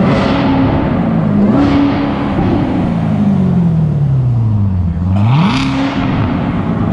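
Corvette V8 engine revved in neutral three times, each blip rising sharply in pitch and then dying away slowly.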